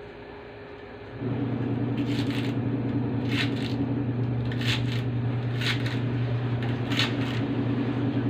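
A kitchen knife cutting through pechay stems on a plastic cutting board: a handful of short crisp cuts at uneven intervals. Under them a steady low mechanical hum comes on about a second in and stops near the end; it is the loudest sound.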